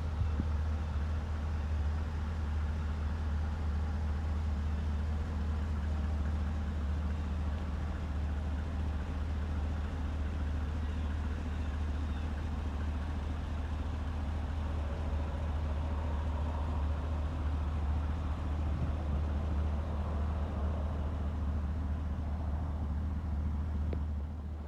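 A 2014 Isuzu NPR box truck's 6.0-litre Vortec gasoline V8 idling steadily, a constant low hum.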